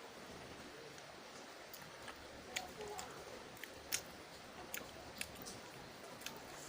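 A person chewing close to the microphone, eating noodles with raw shallots and long beans, with a few sharp, irregular crunchy clicks as they bite.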